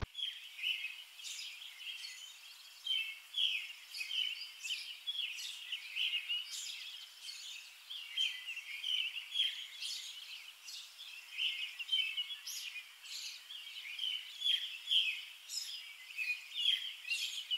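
Birds chirping in a dense, unbroken run of short, quick calls.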